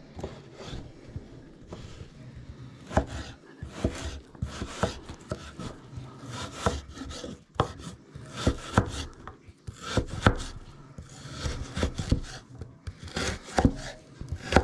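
Knife chopping food on a cutting board in quick, uneven strokes with short pauses.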